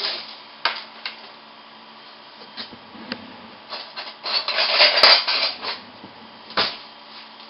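Kitchen utensils being handled: a few light clicks, then about a second and a half of clattering in the middle of the clip with a sharp click in it, and a single knock near the end.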